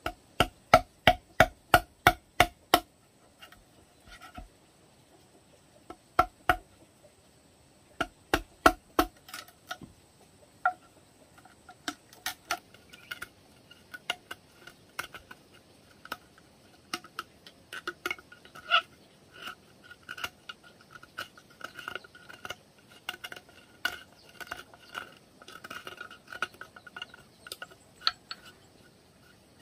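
A wooden mallet knocks a steel chisel into a hollow bamboo pole, sharp ringing knocks about three a second in a run of roughly nine, then short runs around six and eight seconds in. From about ten seconds on come lighter, irregular scraping and squeaky rasping as a blade pares the inside edge of the cut hole.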